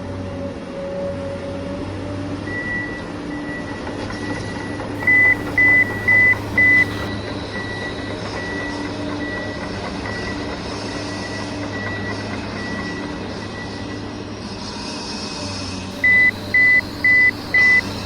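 A vehicle engine running steadily while a reversing alarm beeps, loudest in two runs of four quick beeps, the first about five seconds in and the second near the end.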